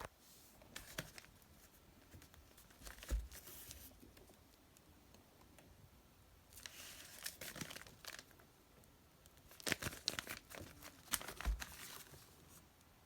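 Crinkling and rustling of packaging being handled, in several short bursts with a few sharper clicks, the loudest about three seconds in and again near ten and eleven seconds.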